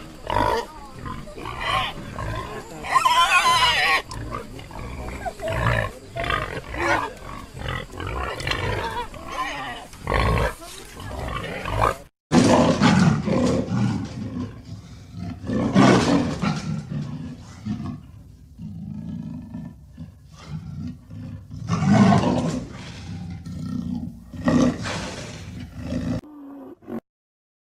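Wild boar grunting in quick, dense runs for about twelve seconds. Then, after a short break, a cheetah calls in separate loud bursts a few seconds apart.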